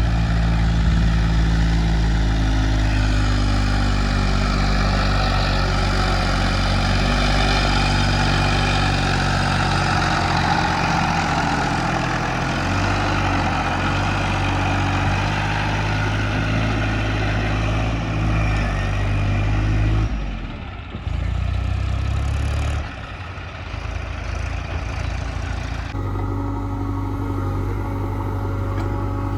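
Heavy diesel machinery engines running steadily, with a strong low hum and a noisy working whir above it. The engine note changes abruptly several times in the second half.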